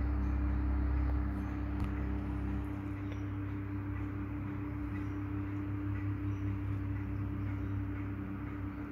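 Vintage Westinghouse desk fan running steadily: its electric motor gives a hum of several steady tones over the even whoosh of the spinning blades. A low rumble drops away about a second in.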